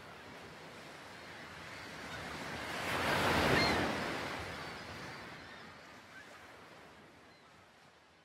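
A single ocean wave breaking: the rush of surf swells to its loudest about three and a half seconds in, then slowly washes back out and fades.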